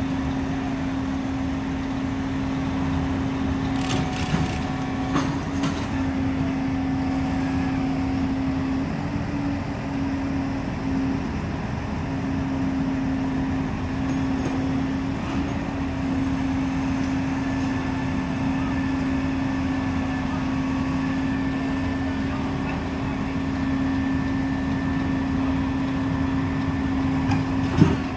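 Utility truck engine running steadily, a constant drone with a low steady hum. A few faint clicks come about four to five seconds in, and a short clank near the end.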